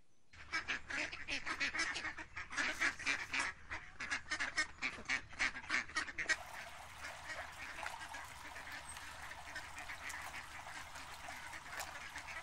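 Mallard ducks quacking in a quick, rhythmic run of calls for about six seconds. Then the calls give way to the steady rush of a shallow stream running over rocks.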